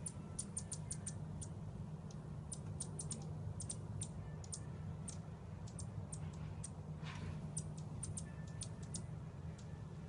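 A hummingbird at the feeder giving short, high chip notes in quick, irregular runs, with a brief rustle about seven seconds in.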